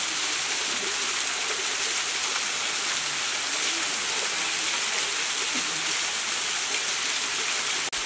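Small waterfall splashing onto rocks: a steady hiss of falling water, cutting out for an instant near the end.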